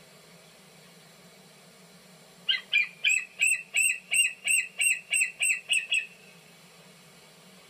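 Young bald eagle calling from the nest: a rapid series of about a dozen high, piping notes, roughly three a second, starting a couple of seconds in and stopping after about three and a half seconds. These are the calls of a nestling eagle waiting to be fed.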